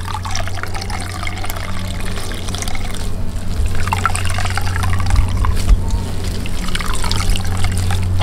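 Water pouring and trickling into a basin as grated arrowroot pulp is squeezed out and rinsed, washing out the starch.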